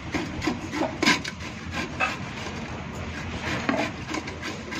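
Cauliflower florets being rubbed by hand across a flat hand grater: repeated short rasping strokes, a few a second.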